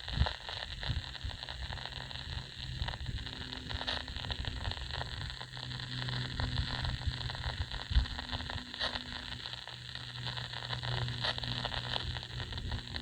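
CB radio receiver hissing with open-channel static, scattered crackles and a low hum, with no one transmitting.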